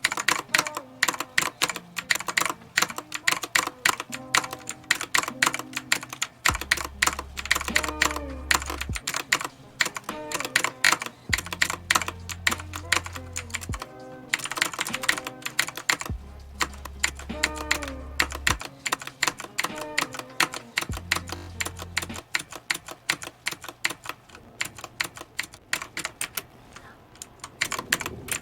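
Redragon Kumara K552 mechanical keyboard with clicky Outemu Blue switches being typed on fast, a dense run of sharp clicking keystrokes. Background music with deep bass notes plays under the typing through the middle.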